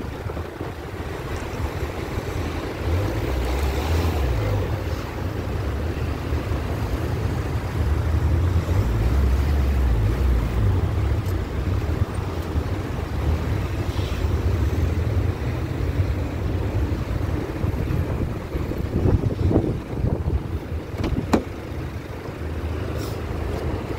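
Wind buffeting the microphone over a Renault Clio's engine as the car is driven slowly out of the parking bay, with a few knocks near the end.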